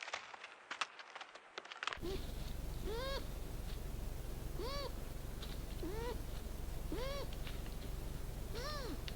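Scattered rustling and clicks, then a wild animal giving a short arched call, rising then falling in pitch, six times about every one to two seconds over a steady low hum from the recorder.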